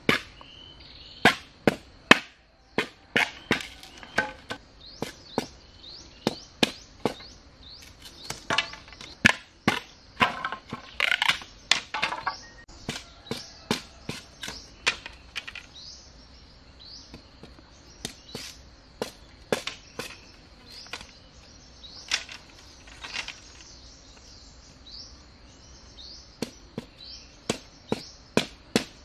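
Machete blade chopping and trimming a green bamboo pole: a run of sharp, irregular knocks and cracks, coming in quick clusters in the first half and more sparsely later.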